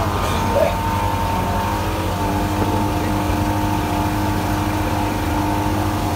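Fire tanker truck's engine running at a steady speed, a constant drone with no change in pitch.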